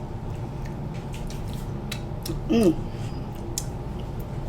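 Eating sounds from a meal of king crab legs: scattered light clicks and snaps of shell being handled and cracked, over a steady low hum. About two and a half seconds in there is a short vocal sound that falls in pitch.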